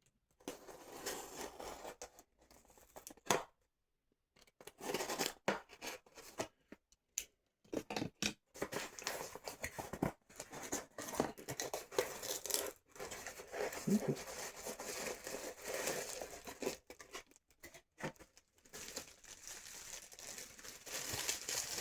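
A mailed package being torn open by hand and its wrapping crinkled: irregular ripping and rustling in bursts, with short pauses between them.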